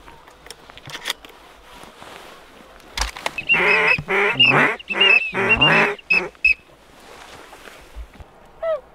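Goose calls: loud, rapid honking in several bursts from about three to six seconds in, with a few sharp clicks before it.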